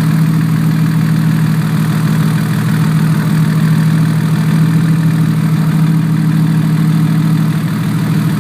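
Turbocharged engine idling steadily, with a small exhaust leak at the turbo flange.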